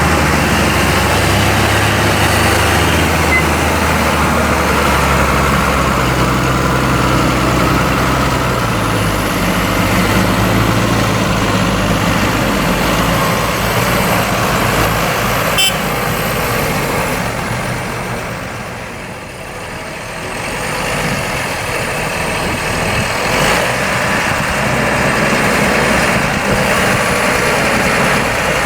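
Diesel farm tractor engines running with a potato harvester's machinery. A steady engine tone is clear for the first several seconds, then gives way to a denser machine noise that dips in loudness just past the middle and builds again.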